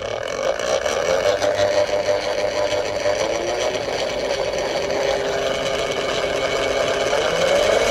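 Winch DC motor turning its chain sprocket under a pulse width modulation speed controller, running in reverse with a steady whine. It gets gradually louder and its pitch climbs near the end as the power is turned up.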